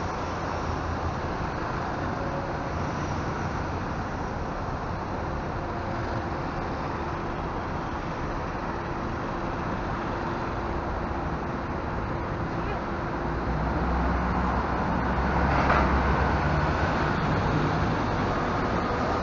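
Double-decker coach's diesel engine running as it pulls slowly in and passes close by, its low rumble growing louder over the last few seconds, over steady street traffic noise.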